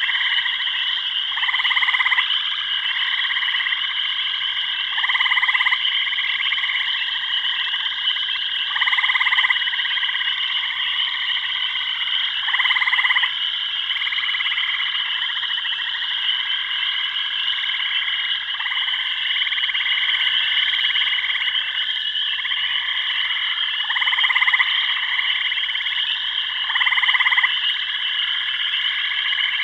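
A chorus of frogs calling. A steady high-pitched trilling runs throughout, and a louder croaking call repeats every three to four seconds, dropping away for a while in the middle before returning.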